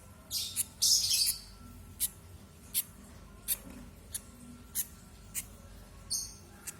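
Two-day-old lovebird chick giving short, high begging cheeps while being hand-fed, one about every 0.7 seconds, with a louder, rapid burst of cheeps about a second in.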